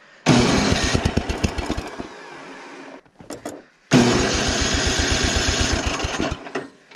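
Yard-Man 9 hp snowblower engine being cranked by its plug-in electric starter in two bursts of a few seconds each, about a second apart, with fast even chugging, not yet catching. The engine has sat unused for two years.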